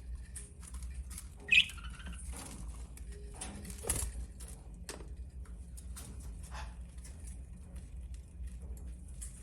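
Budgies touching beaks and chattering: a run of small scattered clicks and ticks, with one loud short squawk about one and a half seconds in.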